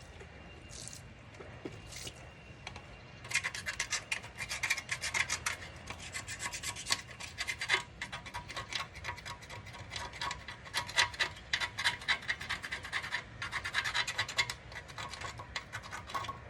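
Fast back-and-forth hand scrubbing or scraping strokes, a few faint ones at first, then a steady run from about three seconds in, with a brief pause near the end.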